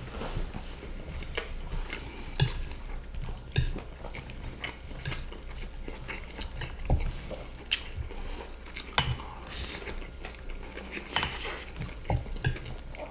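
Forks and a spoon scraping and clinking against plates of rice and stroganoff with potato sticks, in scattered, irregular clicks.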